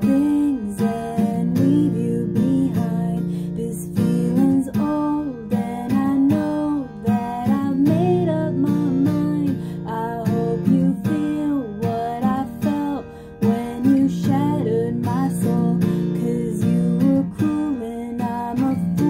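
Acoustic guitar strumming and picking chords in a steady rhythm.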